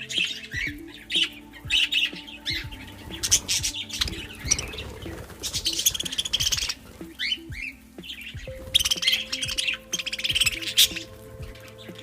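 Budgerigars chattering and squawking in repeated bursts, over background music.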